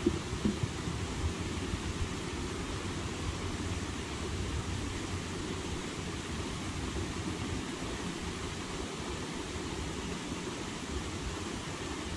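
Steady outdoor background noise: a low, fluctuating wind rumble on the microphone under an even hiss.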